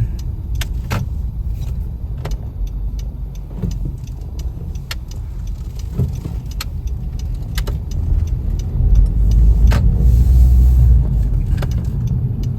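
Car cabin noise while driving slowly: a steady low rumble of engine and tyres, with scattered light clicks and rattles. The rumble swells for a couple of seconds late on.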